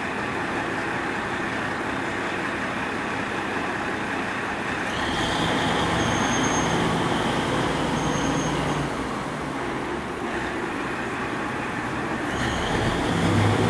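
A train pulling out of the station platform just after its doors close: a steady running rumble that grows louder about five seconds in, where a high whine joins it.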